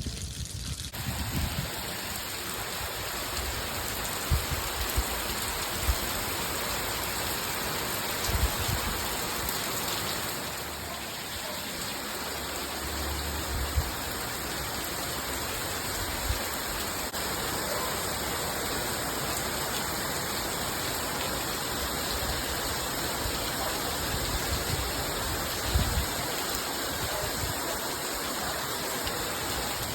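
Heavy rain falling steadily, a dense even hiss, with a few brief low thumps now and then.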